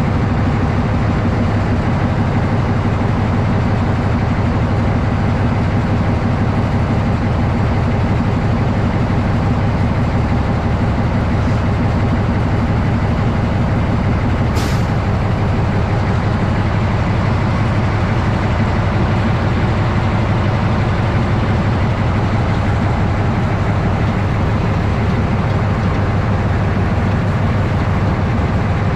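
TU7A narrow-gauge diesel locomotive's engine running steadily under way, with a single short click about halfway through.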